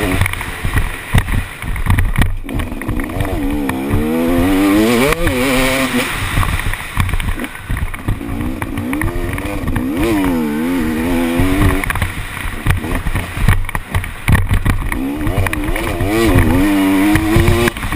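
KTM SX 250 two-stroke motocross bike engine revving hard under a helmet-mounted camera, its pitch repeatedly climbing and dropping as the rider accelerates and backs off around the track.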